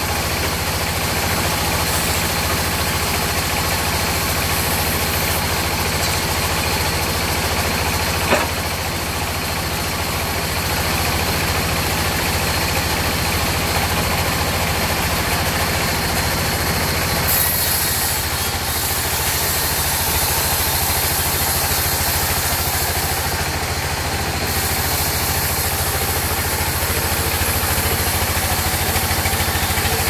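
Log band sawmill running steadily with a low, even machine hum. There is one sharp click about eight seconds in, and a brighter hiss joins the hum a little past halfway.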